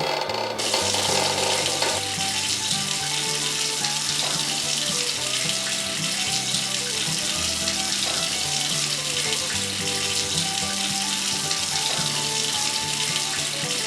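Steady rushing hiss of running water, starting abruptly about half a second in, over background music with a bass line.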